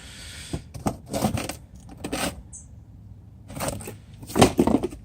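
Rustling and light clicks of cardboard box and packaging being handled, in a few short bouts, the loudest near the end.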